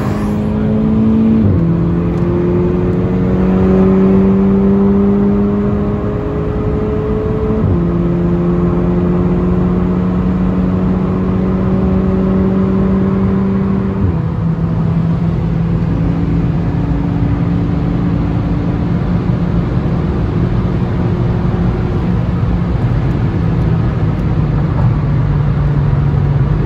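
Car engine under hard acceleration, heard from inside a moving car: its pitch climbs slowly and drops at upshifts about one and a half, eight and fourteen seconds in, then holds nearly steady over road and wind noise.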